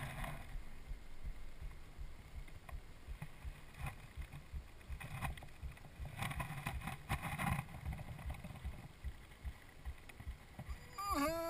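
Faint low rumble and a few soft rustles on a motocross rider's helmet camera as he lies still after a crash, then a voice groaning about a second before the end.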